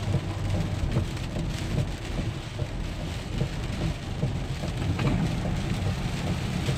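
Heavy hurricane rain hitting a car as it drives, over a steady low rumble of wind and road noise.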